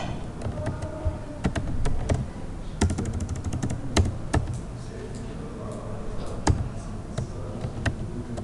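Typing on a computer keyboard: separate key clicks with pauses between them, and a fast run of keystrokes about three seconds in.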